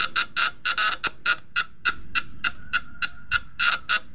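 Homemade fish shocker's vibrating platinum contact breaker buzzing as it drives the coil, crackling in uneven bursts about four to five times a second. The current is strong and the points are sparking.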